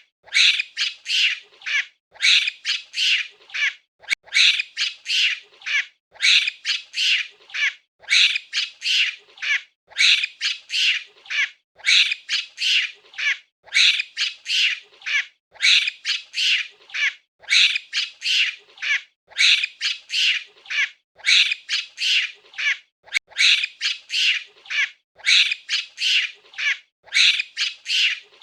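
Monkey calling in high-pitched, chattering squeals, in quick runs of calls that repeat about every two seconds.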